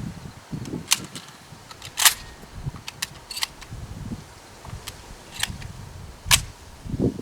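A series of sharp clicks and snaps, the loudest about two seconds in and another near the end, over a low rumble of wind on the microphone.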